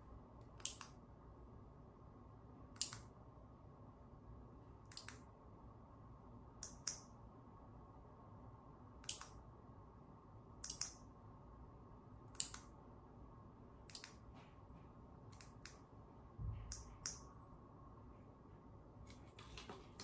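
Short sharp clicks every one to two seconds, several in quick pairs: the relays of a KR2202 2-channel RF remote receiver switching lamps on and off as the remote's buttons are pressed in latched mode. A soft low thump about sixteen and a half seconds in.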